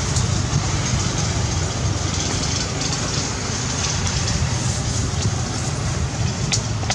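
Steady outdoor background rumble and hiss, with a few faint clicks near the end.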